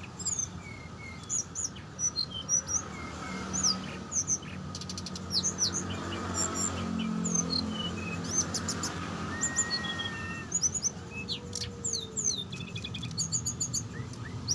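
Small songbirds chirping and calling in many quick, high whistled notes and sweeps, often overlapping, over a faint low steady hum.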